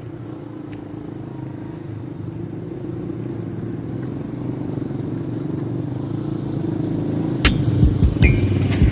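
Motorcycle engines running as the bikes ride slowly toward the camera, growing steadily louder as they approach. About seven and a half seconds in, sharp percussive hits of music cut in and become the loudest sound.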